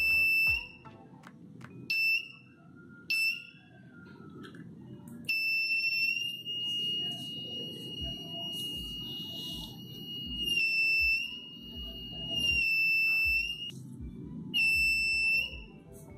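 Piezo buzzer on a DIY metal detector kit beeping at one high steady pitch, the signal that metal is near its sensor coil. Three short beeps come in the first few seconds, then one long tone of about eight seconds with a few brief dips, then another short beep near the end.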